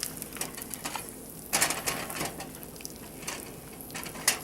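A spoon stirring hot peanut-brittle syrup and peanuts in a bowl, scraping and knocking against the sides. There is a sharper knock about a second and a half in and another near the end, over a faint steady hum.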